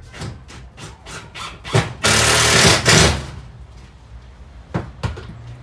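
Handheld power drill driving a screw into a timber stud of a caravan wall frame: a few short clicks, then the drill runs hard for about a second. Two sharp knocks near the end.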